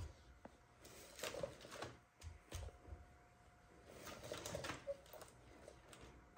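Soft rustling and light knocks of eggplants and green chili peppers being handled in and beside a wicker basket, in a few short clusters.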